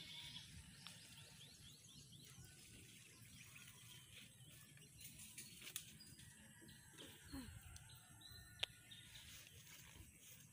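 Near silence: faint outdoor ambience with a few faint bird chirps and two short clicks, the louder one about eight and a half seconds in.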